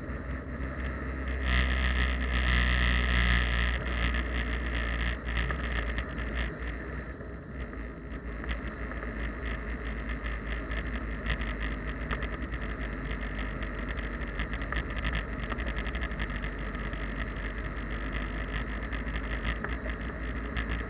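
Steady road and engine noise of a car driving, heard from inside the cabin through a dashcam microphone, with a louder stretch of noise about one and a half to four seconds in.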